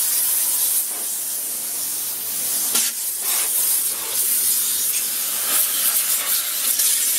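Jet from a SunJoe SPX6000C cordless pressure washer spraying against a truck's plastic fender flare and steel rock rail: a steady hiss of water, with a few brief louder splashes as the jet moves across the surfaces.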